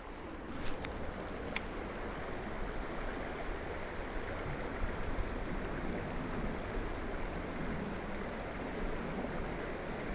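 Creek water running steadily over a shallow rocky riffle, with a few sharp clicks in the first two seconds.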